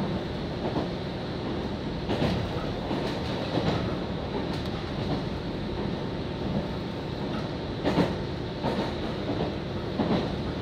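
Steady running noise of a JR Kyushu local train heard from inside the carriage, with occasional sharp wheel knocks over the rail joints a few seconds apart.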